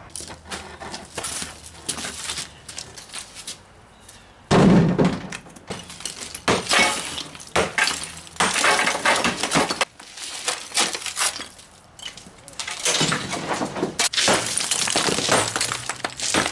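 Sledgehammer blows knocking apart an old brick wall, with bricks and mortar chunks cracking, breaking loose and clattering down in bursts. A heavy thud about four and a half seconds in is the loudest blow.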